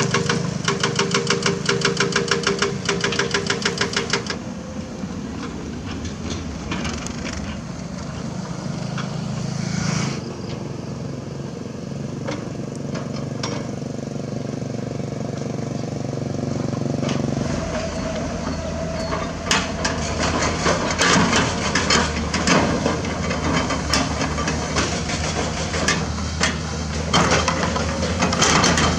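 Komatsu PC200 excavator's diesel engine running. It opens with about four seconds of rapid hammering, about ten blows a second, typical of a hydraulic rock breaker. The engine then runs steadily, and in the last third irregular clunks and knocks of limestone against the steel bucket join in as it digs.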